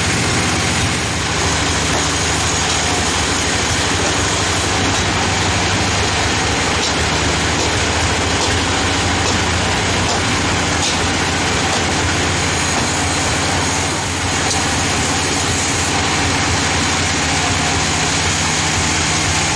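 Band sawmill machinery running steadily, with a constant low engine hum.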